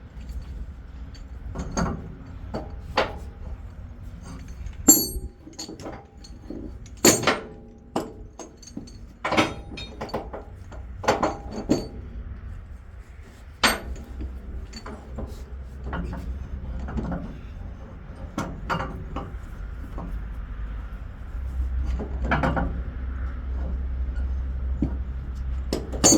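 Steel tie-down chains clinking and clanking irregularly as they are handled and pulled across the load to secure it, with sharp metallic knocks, over a steady low rumble.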